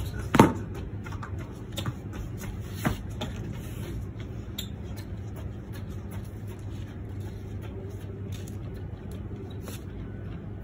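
A sharp knock about half a second in, then a few fainter scattered knocks over a steady low rumble of outdoor background noise.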